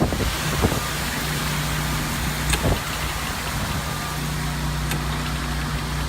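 An engine idling steadily, a low even hum, with a couple of faint clicks.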